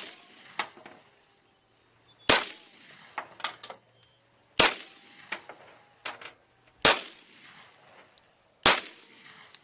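Glock 40 10mm pistol fired four times at an even, slow pace, about two seconds apart. Each loud shot is followed by lighter clanks.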